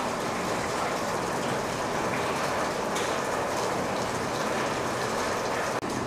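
Streams of pumped water drumming steadily on corrugated metal roofing sheets, an artificial rain sound. The sound cuts out for an instant near the end.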